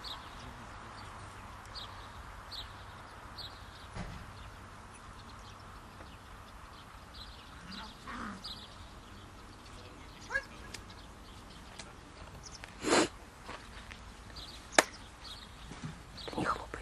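Open-air field ambience with a few short, distant calls, a louder short call about 13 seconds in, and a single sharp crack about a second and a half later.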